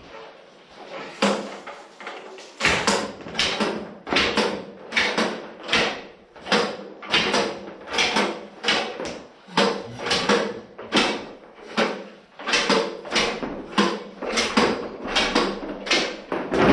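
A regular run of clunking knocks, about two a second, each with a short ring after it, thinning out briefly near the start.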